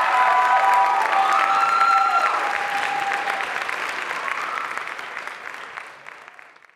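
Theatre audience applauding, dense clapping with a few high held notes over it for the first two or three seconds. The clapping thins and dies away toward the end.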